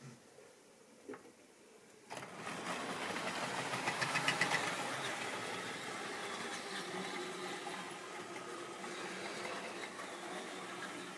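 Model train running on the layout: a locomotive's electric motor whirring and the wagons' wheels running on the track. It starts suddenly about two seconds in, is loudest with a run of clicks around four seconds in, and then runs on steadily.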